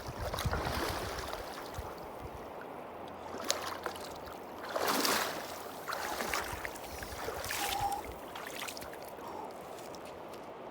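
Cold mountain river flowing, with a few splashes in the water in the middle of the stretch.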